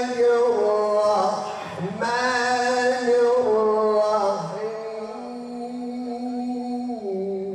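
A man reciting the Quran in the slow, melodic tilawat style into a microphone. He holds long drawn-out notes with wavering, ornamented turns of pitch, and takes a short break about two seconds in before the next long phrase.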